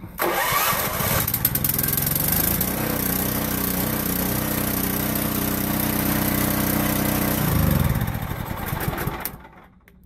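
Champion 3500-watt gasoline portable generator with a homemade plasma (CDI) ignition being electric-started. It catches at once and runs steadily, then is shut off about seven and a half seconds in and winds down.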